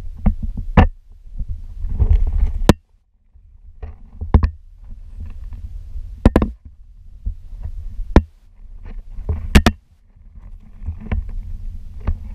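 Handling noise from a handheld camera on the move: an uneven low rumble and rubbing on the microphone, broken by sharp clicks and knocks every second or two.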